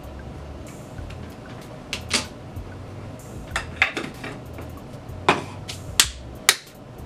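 A handful of sharp clicks and knocks from makeup containers and brushes being handled: one about two seconds in, another near the middle, then three in quick succession in the second half, those being the loudest.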